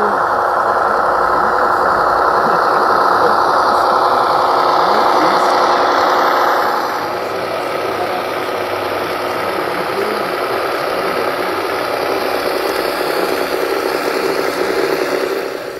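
Sound module of a G-scale model diesel locomotive playing a steady diesel engine running sound with a knocking beat, through the loco's small speaker. It gets quieter about seven seconds in.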